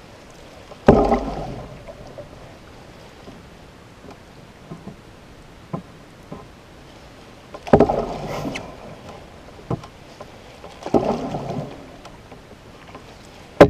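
Canoe paddle strokes in calm water: a splash and swirl of the blade about four times, several seconds apart, with a few small knocks between them.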